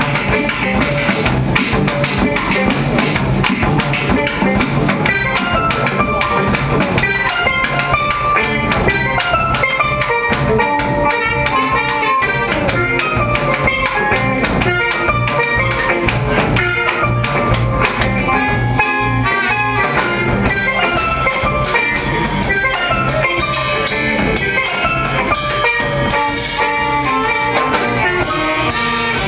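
Live jazz band: steel pans playing a fast melodic line of quick separate notes over a drum kit and a bass line, with guitar.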